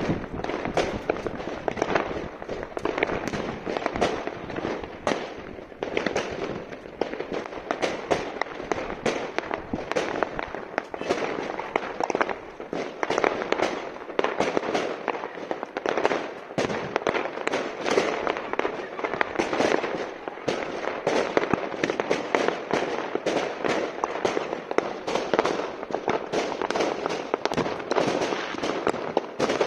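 Many fireworks and firecrackers going off at once across a town: a continuous mass of overlapping bangs and pops, several every second, with no pause.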